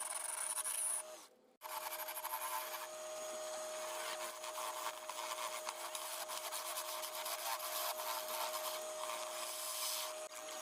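A tool scraping and rasping against wood, a continuous gritty rubbing over a steady hum. It drops out briefly about a second in, then carries on.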